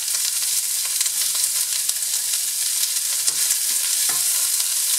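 Chopped onion and garlic sizzling in hot oil in a stainless steel sauté pan over high heat, a steady, very noisy crackling hiss. A wooden spoon starts stirring them near the end.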